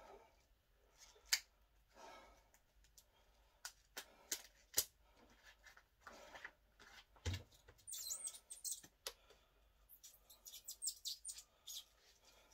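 Cloth bending wraps being handled and adjusted around a short steel bending bar: scattered sharp clicks, bursts of rustling, and runs of short high squeaks near the middle and toward the end.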